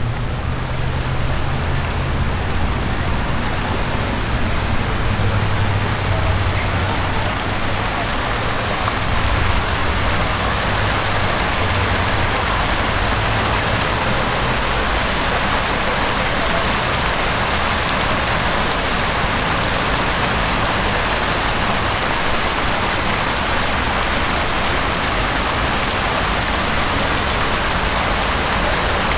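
Steady rushing and splashing of falling water. A low engine hum runs under it for about the first half.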